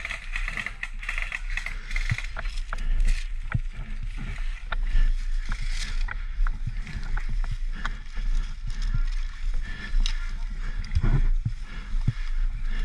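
Dry grass and leaf litter rustling and crackling as a player crawls through it with an airsoft rifle, with irregular sharp clicks and a constant low rumble of handling noise and rubbing on the body-worn camera's microphone.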